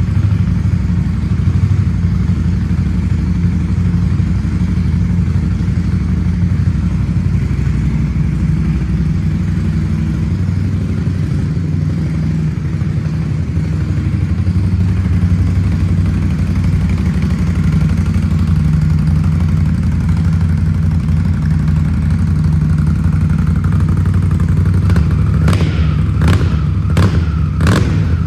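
Indian Scout Bobber's V-twin engine running steadily through Shotgun aftermarket exhaust pipes. Near the end come several short, sharp bursts.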